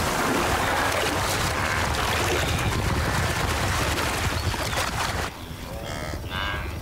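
Loud splashing and churning water as a wildebeest herd bolts from a crocodile's lunge at the water's edge. About five seconds in, the splashing stops and repeated wildebeest calls take over.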